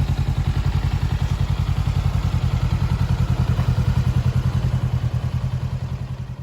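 A 2022 Honda CBR400R's parallel-twin engine idling steadily through a Moriwaki aftermarket silencer, with an even, pulsing exhaust beat. The sound dies away near the end.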